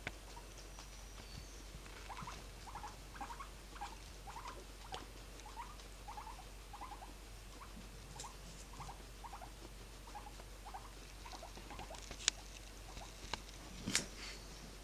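Guinea pig making a run of short, soft squeaks, about two a second. Near the end, a sharp click and then a louder knock.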